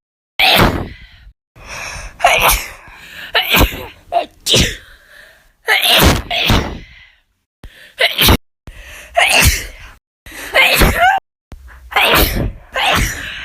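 A woman sneezing over and over, about ten separate sneezes, some with a sharp intake of breath just before. Several are cut off abruptly where one clip gives way to the next.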